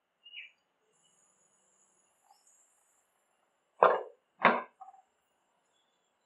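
Glass pan lid set down on a nonstick pan: two loud clacks about two-thirds of a second apart, then a faint tap as it settles.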